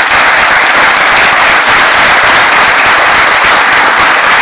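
Audience applauding loudly, a dense patter of many hands clapping at once.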